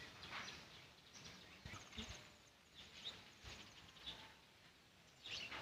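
Faint rural outdoor ambience with scattered short bird chirps, including a quick high trill about two seconds in.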